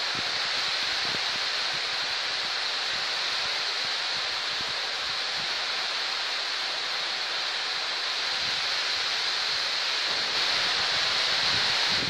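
Heavy rain pouring steadily onto trees and grass, an even hiss that grows a little louder near the end.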